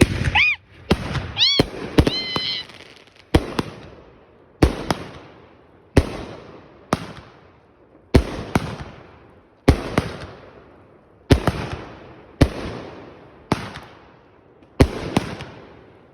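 Fireworks going off in a steady series, a sharp bang about once a second, each trailing off in a fading rumble.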